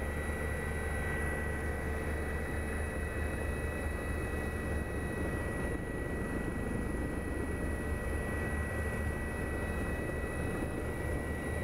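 Steady engine and rotor noise of the aircraft filming from overhead: a low rumble with a thin, constant high whine.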